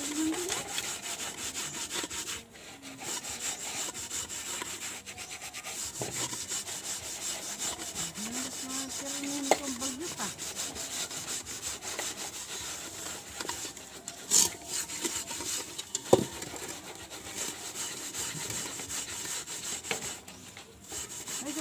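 A hand scrubs the soot-blackened outside of a metal rice pot with gritty grey paste, making a steady, rough rasping of rapid back-and-forth strokes as the soot is scoured off. There are a couple of sharper knocks about two-thirds of the way through.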